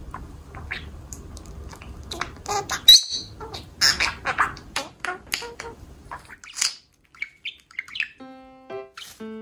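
Budgerigar chattering and warbling in quick chirps, mimicking the word "ume" about four seconds in. Music with steady sustained notes starts near the end.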